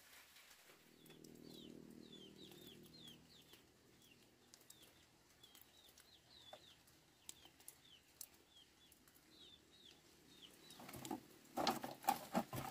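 A small bird calling over and over with short, high chirps, over a faint low hum at first. Near the end come loud knocks and clatter as the bamboo poles and plastic mesh netting of a fence are handled.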